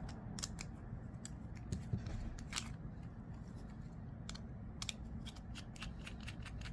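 Irregular small metallic clicks and ticks of a T8 Torx driver working the screws out of a folding knife's handle, over a low steady hum.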